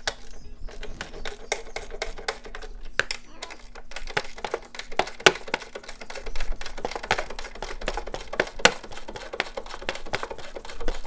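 Hand ratchet clicking in quick, uneven runs as the strut's upper mount bolts are loosened, with a few sharper knocks.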